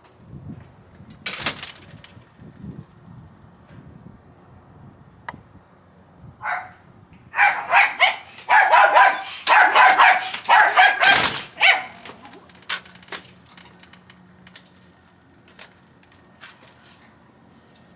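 A dog barking in a quick run of about eight loud barks over some four seconds, about halfway through.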